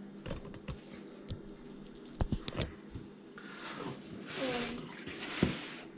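Hand tools working on a Husqvarna TC50 minibike's engine during an oil change: a few scattered clicks and knocks, then a soft scraping rustle.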